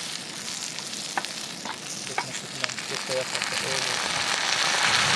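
Spicy chicken gravy with soy and chilli sauce sizzling in a hot pan as it is stirred, with a few light clicks of the spoon against the pan. The sizzle grows louder over the last couple of seconds.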